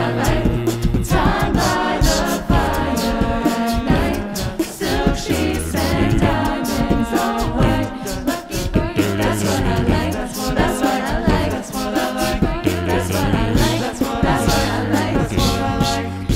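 A cappella vocal ensemble singing a wordless passage of a pop song: stacked backing harmonies over held bass notes, with a steady beat.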